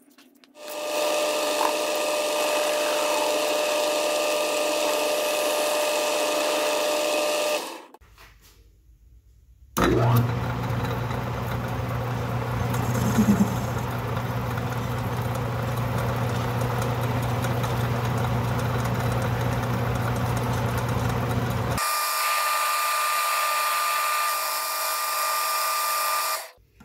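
Small metal lathe running, its chuck spinning while a turning tool cuts down a small-diameter rod to make a screw. The sound is steady, broken into three stretches by abrupt cuts, with a short quiet gap about eight seconds in, and each stretch has a slightly different pitch.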